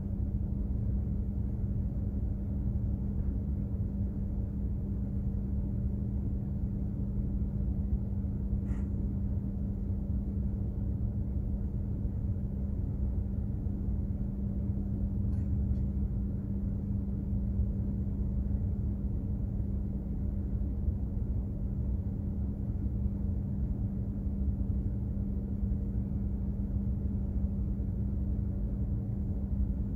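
Steady low drone of a container ship's engines and machinery under way, with a constant hum at one fixed pitch over a deep rumble. Two faint ticks come partway through.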